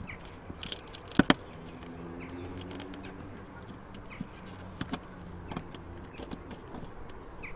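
Two sharp clicks about a second in as pliers work the old plastic locker-door catch and its drilled-out rivet remains off the motorhome wall, followed by a few lighter clicks. A low steady hum and a few faint, short high chirps run underneath.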